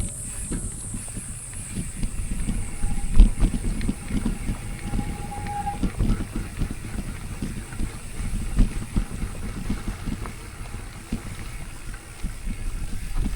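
Mountain bike rolling over a rough trail: a steady low rumble with irregular knocks and rattles. A brief high squeal comes about five seconds in.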